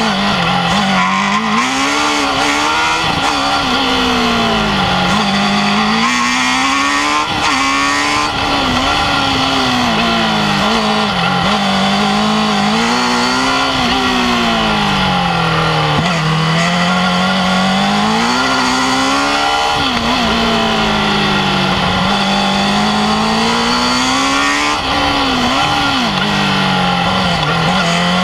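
Formula Student race car's engine heard from on board, revving hard and climbing in pitch on each straight, then dropping away as the driver lifts for the corners, many times over a lap of a tight track.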